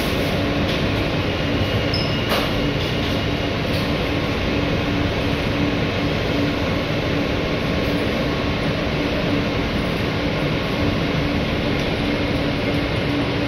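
Inside a New York City Transit R160A subway car with Alstom propulsion, running at a steady speed: a continuous rumble of wheels on the track and a steady, unchanging hum.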